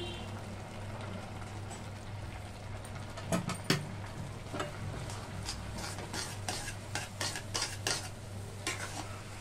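A metal spatula stirring semolina into a kadai of simmering water and grated potato: quiet at first, then a run of short scrapes and clicks against the pan from about three seconds in, over a faint steady hum.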